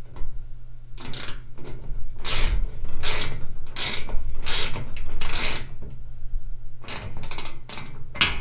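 13mm ratcheting wrench tightening bolts on a steel tool cart, the ratchet clicking in a run of repeated strokes, with a few quicker clicks near the end.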